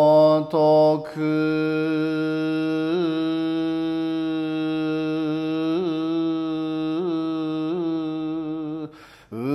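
Solo male voice chanting Shingon shōmyō in the Buzan style (a hyōbyaku), drawn out very slowly. A short wavering phrase is followed by one long held note with small pitch waverings (yuri) every second or two, then a breath about nine seconds in before the next note begins.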